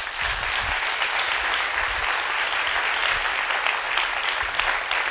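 Theatre audience applauding steadily as a speaker walks on stage.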